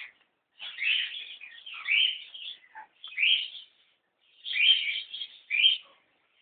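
Pet cockatiel calling in a run of short chirps and rising squawks, about five calls with brief gaps between them.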